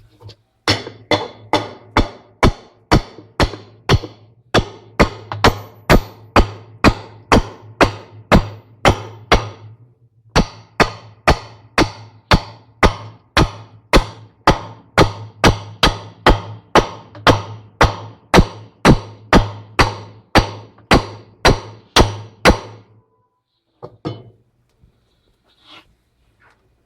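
Steady hammer blows on a tightening tool, about two strikes a second with a short pause partway through, driving home the basket nut on a GE 13 kg washing machine's drive mechanism. A low hum runs under the strikes.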